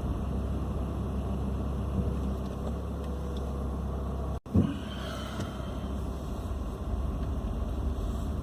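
Steady car cabin noise from the engine and tyres while driving slowly. About halfway through the sound cuts out for an instant and comes back with a short low thump.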